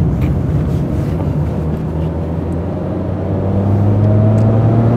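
VW Golf Cabriolet's four-cylinder petrol engine pulling under acceleration in gear, its pitch rising slowly and getting louder over the last couple of seconds, heard from inside the cabin.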